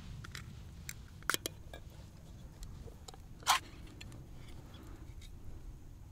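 Hands handling an opened tin of sweet corn and fishing gear: a few sharp clicks and light knocks, and one louder scraping rustle about three and a half seconds in, over a steady low rumble.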